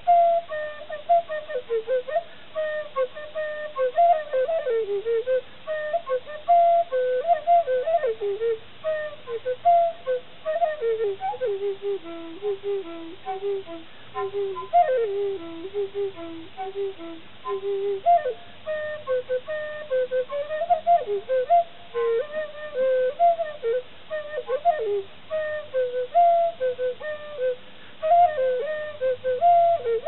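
Native American flute played solo: an improvised melody of many short notes with quick pitch bends and slides, moving up and down through its middle range.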